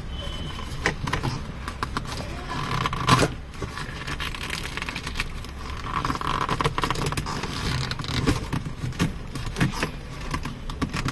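Plastic and leatherette gear lever boot being worked loose from a car's centre console by hand: scraping and rustling with scattered sharp clicks, the loudest click about three seconds in.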